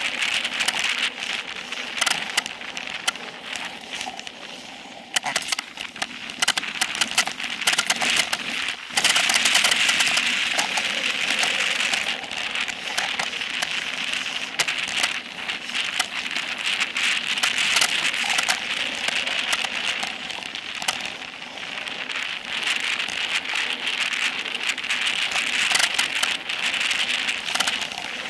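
Specialized Epic Pro mountain bike descending dirt singletrack at speed: a steady crackling rush of tyres over the trail, with many sharp rattles and clicks from the bike over bumps, louder from about nine seconds in.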